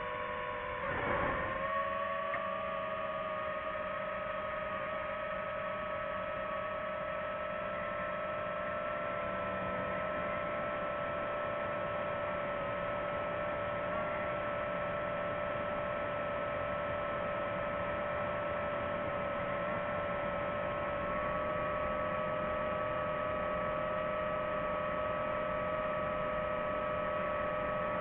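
Quadcopter drone's propellers and motors humming steadily in flight, a constant pitched drone. About a second in there is a short rush of noise and the pitch steps up slightly, then holds steady.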